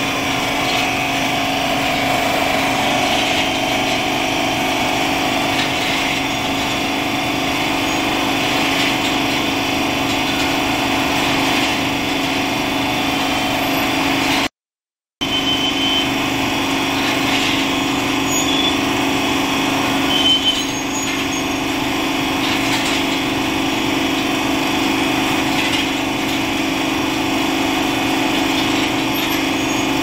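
Machinery of a hanging-basket frying production line running with a steady mechanical hum. The sound cuts out completely for a moment about halfway through.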